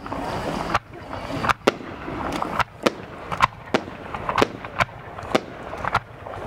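Aerial fireworks shells launching and bursting: a quick, irregular series of sharp bangs, about ten of them, over a steady background hiss.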